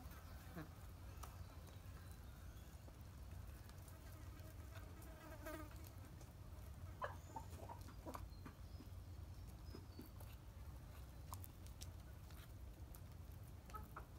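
Chickens pecking grain from a plastic feed tray: faint, scattered taps, with a short hen call about five seconds in, over a steady low hum.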